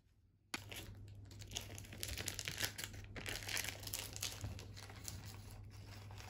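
Parchment baking paper being peeled off the base of a freshly baked cake: a dense, irregular crinkling and tearing that starts suddenly about half a second in.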